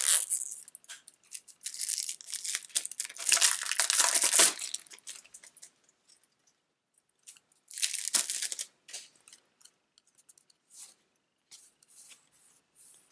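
Plastic shrink-wrap being torn and crinkled off a deck of game cards. It comes in loud rustling bursts over the first few seconds and again briefly about eight seconds in, followed by light ticks and rustles of cards being handled.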